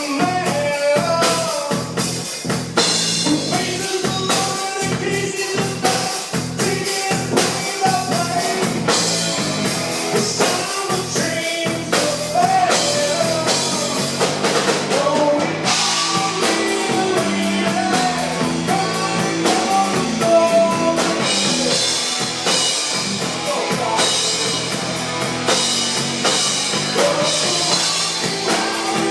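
Live rock band playing a song: singing over drums and electric guitar with a steady beat.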